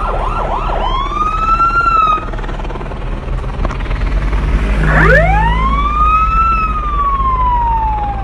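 Emergency vehicle siren: a fast yelp at the start turning into a rising-and-falling wail, then a second long wail that climbs about five seconds in and falls away slowly, over a steady low engine rumble.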